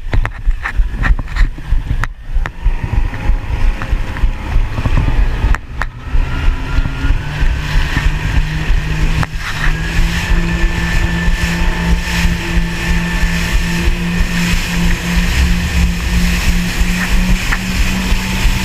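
Jet ski engine running under heavy wind and water buffeting on the microphone. From about seven seconds in, a steady engine note sets in and climbs slowly.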